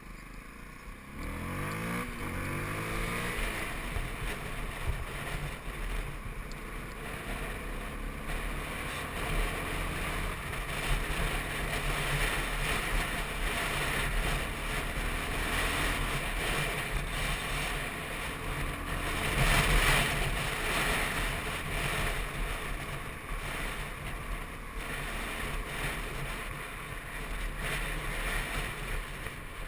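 Yamaha WR125's single-cylinder four-stroke engine revving up with a rising pitch about a second in, then running steadily as the bike rides along, with wind and road noise. A louder rush of noise about two-thirds of the way through.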